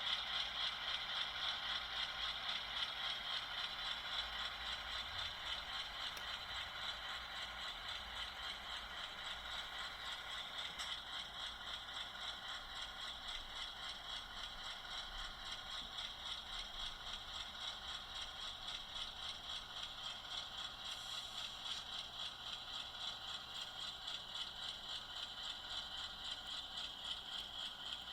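HO scale model GE Dash 8-40CW diesel locomotive running on track: a steady mechanical hum with a quick, even clicking.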